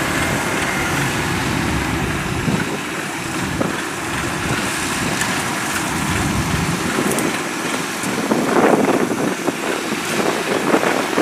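Kubota DC-93 combine harvester running steadily, its diesel engine and threshing gear working as it harvests. The din swells briefly about eight and a half seconds in.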